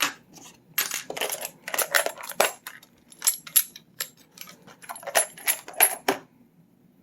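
Small metal tools and parts clinking and clattering against each other and a hard surface, a quick irregular run of sharp clicks that stops about six seconds in, as they are rummaged through for a smaller tool.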